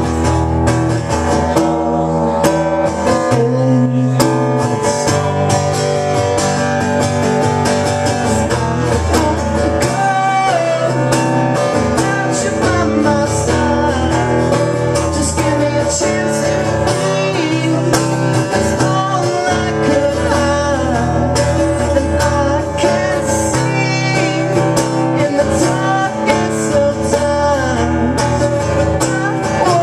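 Acoustic guitar strummed steadily while a man sings over it.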